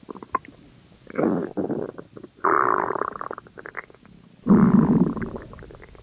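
Loud stomach growling: three long gurgling rumbles, starting about a second in, near two and a half seconds and near four and a half seconds, the last the loudest, with small pops and gurgles between them.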